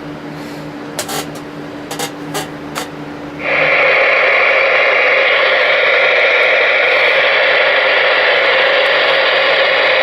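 A few sharp clicks of the radio's knobs or switches over a low hum. About three and a half seconds in, loud steady receiver static suddenly comes on from the Ranger RCI-2970N4's speaker.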